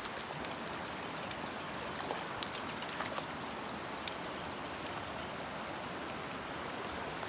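Steady hiss of rain falling, with scattered short, sharp ticks.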